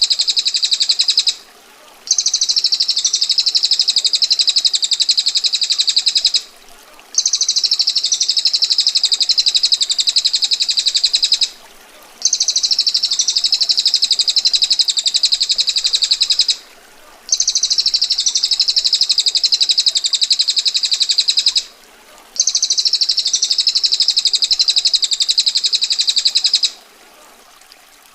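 Female bar-winged prinia (prenjak betina) giving its long, rapid, harsh rolling trill ("ngetir"), repeated six times, each roll about four and a half seconds long with a short pause between.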